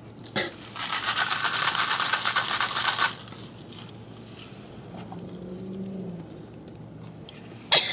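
A loud, rattling slurp through a straw from a large fast-food cup, lasting about two seconds and stopping sharply. A faint low hum follows.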